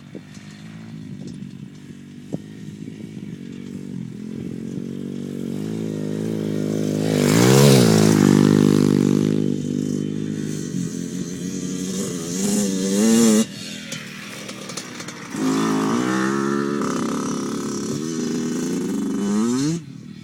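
Dirt bike engine running, growing louder to its loudest about eight seconds in, then revving up twice with rising pitch. Each rev is cut off sharply, once around thirteen seconds and again near the end.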